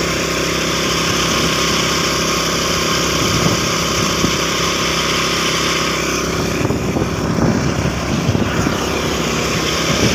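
Motorcycle riding along a road at speed, its engine running under heavy, steady wind rush on the microphone; the rush thins a little after about six seconds.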